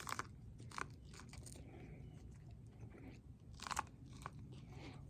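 Crunching bites and chewing of a raw ear of fresh sweet corn, in short irregular crunches with a louder one near the end.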